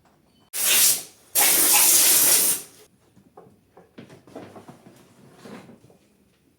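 Compressed air hissing from a nozzle in two bursts, a short one that dies away and then a longer steady blast of about a second that cuts off sharply. Faint clicks and knocks of handling follow.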